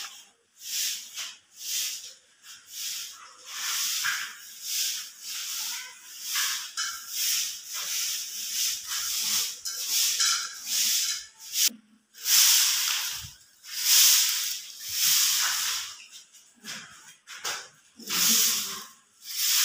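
Broom sweeping a rough concrete floor in short scratchy strokes, about one to two a second, with a few longer, louder strokes about twelve seconds in.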